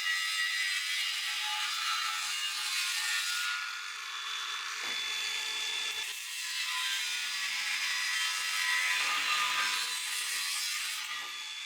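A power tool cutting or grinding, giving a harsh, steady hissing noise that eases briefly about five seconds in and then picks up again.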